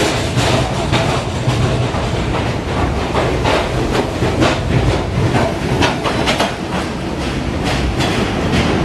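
New York City subway train rolling past, its wheels clicking over rail joints in an uneven clatter of about two clicks a second over a steady rumble and low hum.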